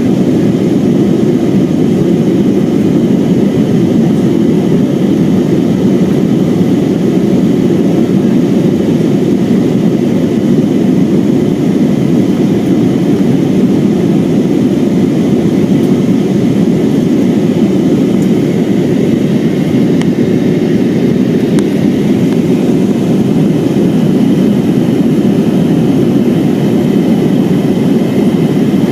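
Steady rumble of an Airbus A320's jet engines and rushing air, heard from inside the passenger cabin.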